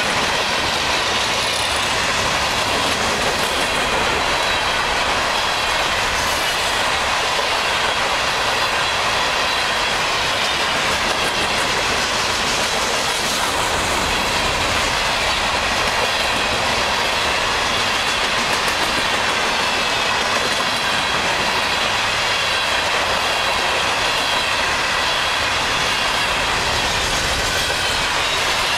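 Long freight train of open-top hopper cars rolling past at speed: steady rumble of steel wheels on the rails, with faint high steady tones over it.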